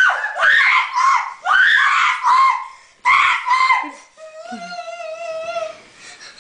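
Children screaming and shrieking in repeated loud bursts for about four seconds, then a child's voice holding one long, wavering note.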